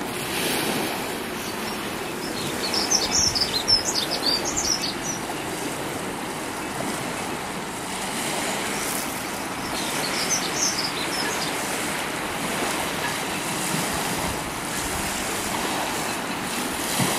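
Steady wash of small waves and breeze at the water's edge. A small bird twitters in two short bouts, the louder one about three seconds in and another around ten seconds.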